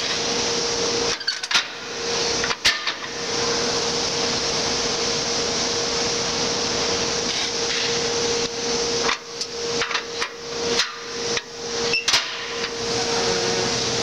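Steady rushing machine noise with a constant hum, broken a little after a second and again several times between about nine and twelve seconds by sharp clicks and knocks.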